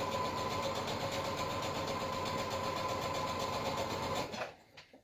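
Brother electric sewing machine stitching at a steady speed, a motor whine over rapid needle strokes, stopping abruptly about four seconds in, followed by a few light clicks.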